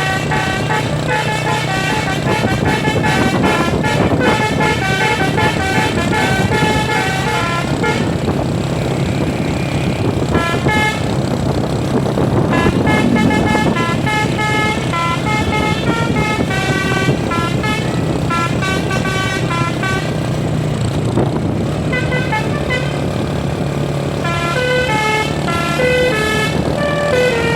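Telolet basuri musical multi-trumpet bus air horn playing long runs of a stepped melody in phrases with short breaks between them, over the bus's engine running steadily underneath.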